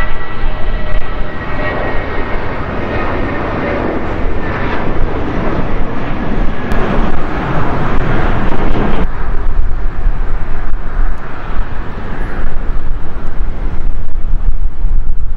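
Boeing 737-500's CFM56-3 turbofan engines running at taxi power: a steady jet rumble with a faint whine. About nine seconds in it drops abruptly to a duller, quieter rumble.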